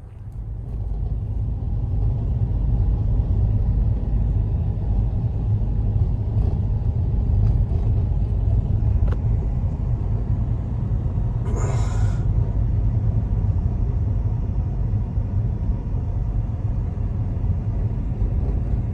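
Steady low rumble of storm wind, fading in over the first two seconds, with a brief hiss about twelve seconds in.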